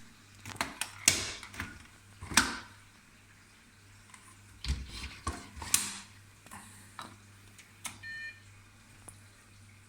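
Washing machine being set going: a string of sharp clicks and knocks from its door and controls, then a short electronic beep about eight seconds in, over a faint steady low hum.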